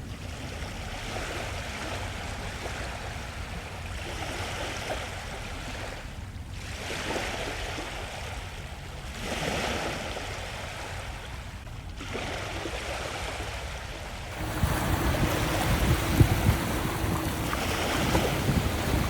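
Ocean surf with wind buffeting the microphone, shifting at several cuts. In the last few seconds a louder low rumble comes in, with a steady low tone.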